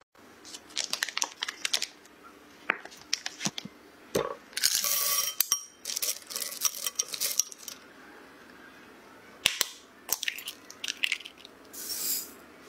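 Baking prep sounds in quick succession: a butter wrapper crinkling, chocolate chips and a silicone spatula clicking and clinking against a glass bowl, and brown sugar poured into a glass bowl near the end.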